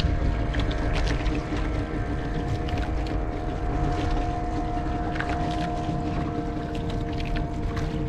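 A boat engine runs steadily under a low rumble of wind and water, with scattered light clicks and knocks.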